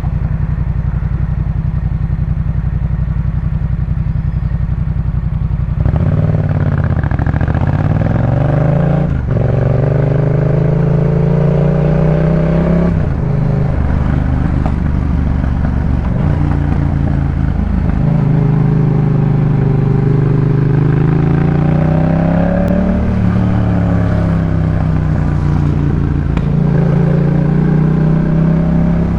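Yamaha MT-07's parallel-twin engine through a Jeskap K4 full exhaust. It runs steadily for about the first six seconds, then pulls away with the pitch climbing in several pulls broken by gear changes, eases off briefly a little past the middle, and climbs again.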